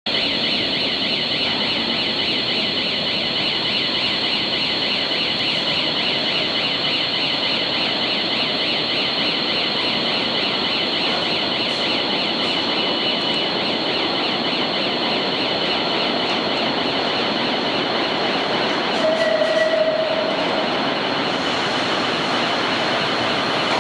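Vintage New York City subway train of R1/R9-series 'Arnine' cars running in through the tunnel into the station: steady train rumble with a continuous high-pitched squeal that pulses rapidly. A short steady tone sounds briefly near the end.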